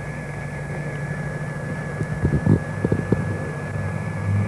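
Steady drone of a formation of Embraer T-27 Tucano turboprop aircraft in flight, with a constant high thin tone over it. A cluster of short knocks comes about two to three seconds in.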